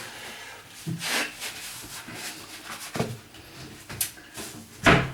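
Household clatter: a few separate short knocks and scraping sounds, the loudest a sharp knock near the end, the kind made by moving things about and opening or shutting cupboards while cleaning a kitchen.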